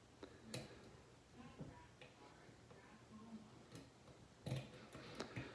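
Faint clicks and scrapes of a lock pick working the pin tumblers of a Sargent lock cylinder held under heavy tension, a few separate ticks with a slightly louder sound near the end.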